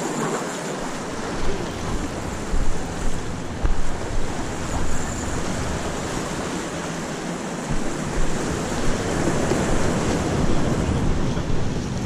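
Wind buffeting the microphone in uneven gusts over a steady wash of surf against jetty rocks.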